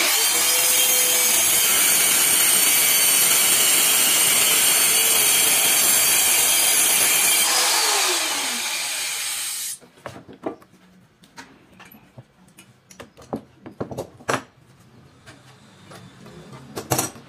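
Handheld electric circular saw cutting through a white board panel: a loud, steady cutting whine that ends about seven and a half seconds in, after which the released motor winds down, its pitch falling over about two seconds. Then scattered knocks and clicks as the cut boards and bar clamps are handled.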